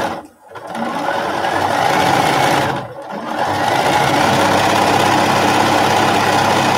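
Bernina sewing machine stitching a seam at a steady speed, stopping briefly twice: just after the start and about three seconds in.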